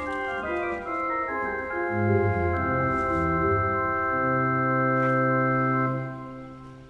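Background music on an organ-like keyboard: slow held chords with a bass line coming in about two seconds in, the last chord fading out near the end.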